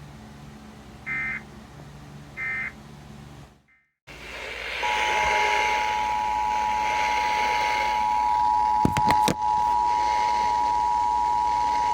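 Emergency Alert System broadcast: two short digital data chirps, then a brief cut to silence and a hissy radio signal. About five seconds in, the steady two-tone EAS attention signal starts and holds, with a few clicks partway through.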